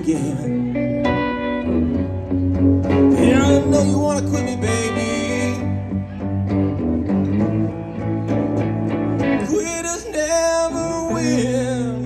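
Live duo of a hollow-body electric guitar and an acoustic guitar playing a song together.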